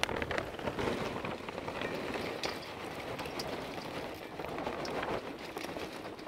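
Homemade lump charcoal pouring from a bag into the metal bowl of a small Weber charcoal kettle grill: a steady clatter of many pieces tumbling onto the grate and onto each other.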